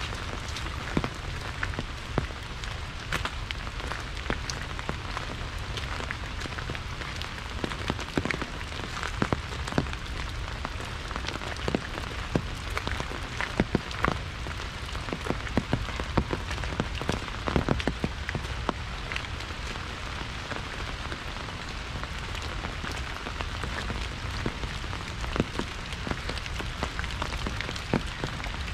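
Rain falling on an umbrella overhead: a steady hiss of rain with many sharper single drops striking throughout.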